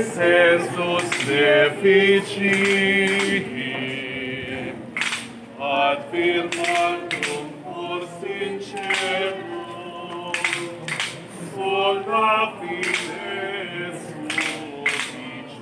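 A group of men and women singing a hymn unaccompanied as they walk in procession, with irregular sharp knocks heard here and there.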